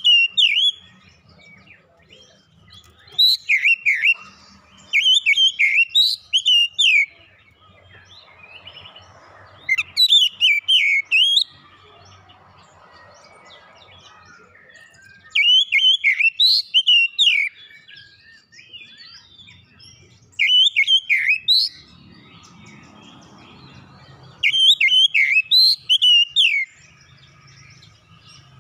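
Oriental magpie-robin (kacer) singing: loud phrases of quick, sliding whistled notes, repeated every four to five seconds with short pauses between them.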